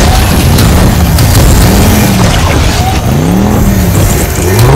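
Loud sound-effect mix of car engines revving and mechanical whirring for cartoon cars transforming into robots: pitched whines rise and fall several times over a heavy low rumble.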